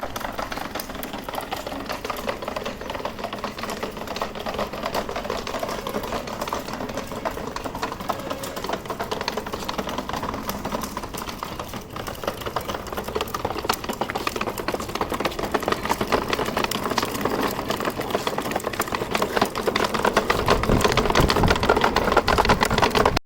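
Child's ride-on toy car driving: a steady, fast mechanical rattle and whir from its drive and plastic wheels, louder and heavier near the end.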